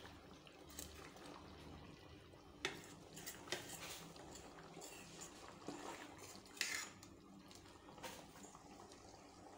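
Metal ladle stirring a thick curry in a steel pot: a few faint clinks and scrapes of metal on the pot's side at irregular moments.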